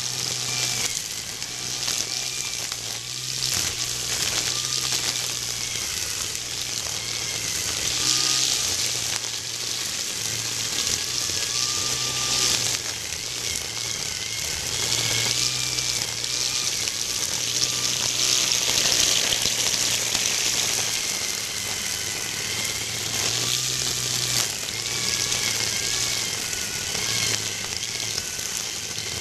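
Corded GreenWorks electric string trimmer running with zip ties in place of trimmer line, cutting long grass: a steady motor whine that wavers with the load, over a dense hiss of the ties whipping through the grass.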